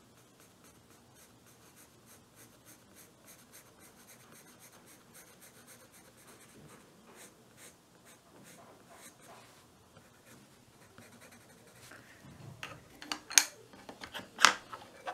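A 2B graphite pencil shading on drawing paper in quick, light strokes: a fast run of faint scratches. Near the end come a few sharp knocks, louder than the drawing.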